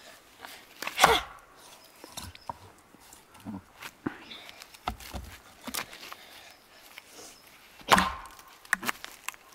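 Axe chopping into a standing tree stump: two hard blows, about a second in and near the end, with lighter knocks of the blade on the wood between them.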